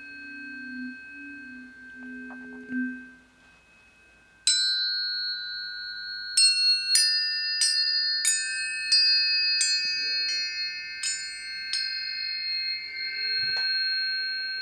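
Planetary tuning forks ringing with high, pure, sustained tones. After a brief near-silent pause one is struck, then a quick run of about nine strikes follows, roughly two-thirds of a second apart, each adding its own ringing tone over the others.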